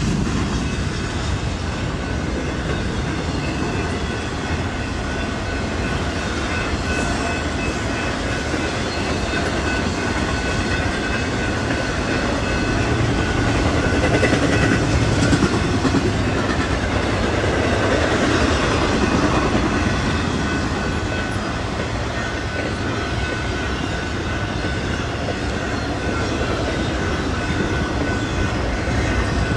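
BNSF intermodal freight train rolling past, a steady rumble with the clatter of its wheels on the rails, swelling a little around the middle.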